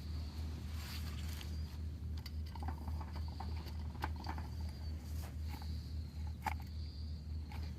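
Campfire crackling, with a few scattered sharp pops over a steady low hum; a faint thin high tone comes and goes.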